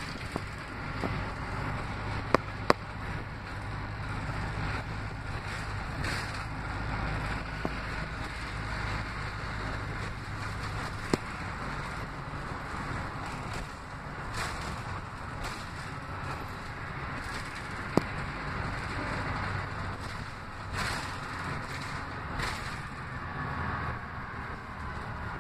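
Interior ride noise of an Orion VII CNG transit bus under way: a steady engine and road rumble with a low hum, broken a few times by sharp clicks.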